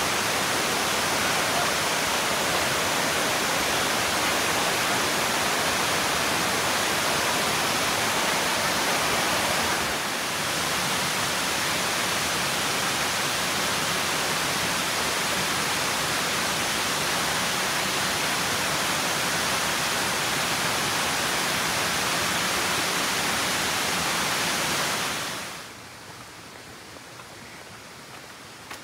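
Arethusa Falls, running full after heavy rain, giving a loud, steady rush of falling water. Near the end it cuts off suddenly to a much quieter background.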